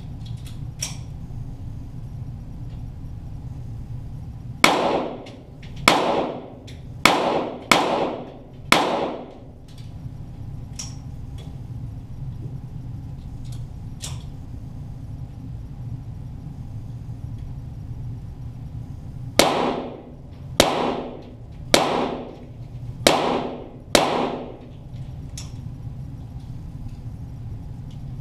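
Two strings of five .22 rimfire shots from a Walther GSP target pistol, each shot a sharp crack with a short echo, fired at a steady pace of about one a second; the second string comes about ten seconds after the first.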